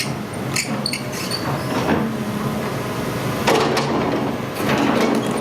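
Hitachi ZX210 tracked excavator's diesel engine running steadily, with scattered sharp metallic clicks and clanks from the machine.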